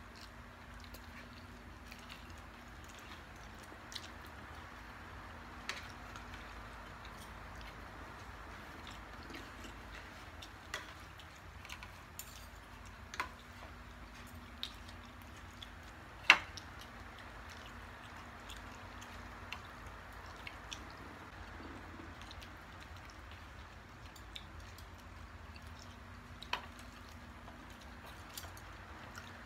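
Quiet eating sounds of two people eating with their hands: soft chewing, with occasional light clicks and taps from the plates on the glass tabletop. The loudest click comes about halfway through, over a steady faint hiss.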